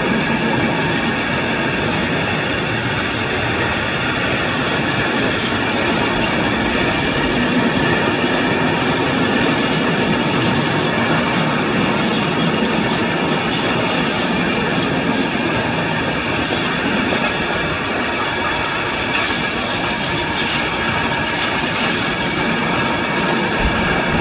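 A freight train running past on the rails: a steady, unbroken rumble and rail noise with faint high ringing tones over it.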